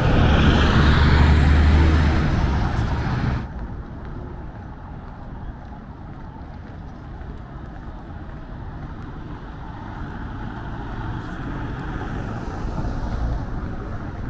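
A tour coach passing close by, its engine running with a loud, low drone, cut off suddenly about three and a half seconds in. The rest is quieter city street background noise.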